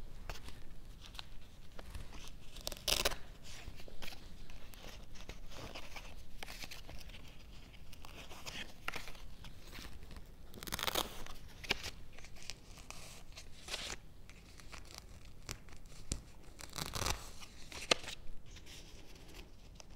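Velcro hook-and-loop fasteners ripping apart again and again as paper hearts are pulled off a cloth board: a string of short tearing rips, the louder ones about three, eleven and seventeen seconds in.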